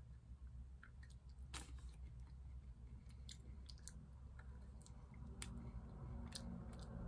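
A person chewing pieces of a crunchy muesli bar of nuts, flakes and corn, with large nut chunks. The chewing is faint, with a scattering of small, sharp crunches.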